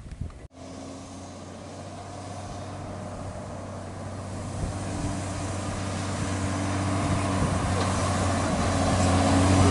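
Hino 500 FM320TI truck's diesel engine running steadily as the truck approaches, growing louder throughout. The sound cuts out for a moment about half a second in.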